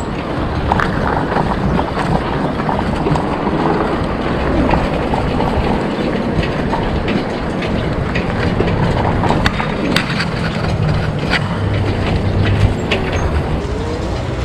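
Riding noise from a moving e-bike: a steady rumble of wind and road on the microphone, with scattered knocks and rattles.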